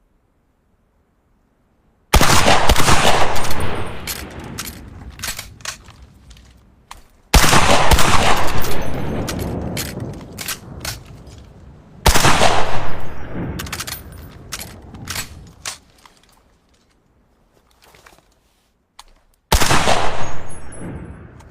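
TOZ Model B side-by-side double-barrel shotgun fired four times, several seconds apart. Each shot is a sudden, very loud blast with a long fading echo, and sharp clicks and knocks follow in the quieter stretches.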